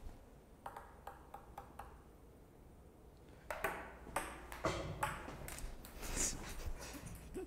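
A few sharp clicks and taps, then from about halfway a busier run of knocks, clicks and rustling, as small objects are handled and set down by someone moving around.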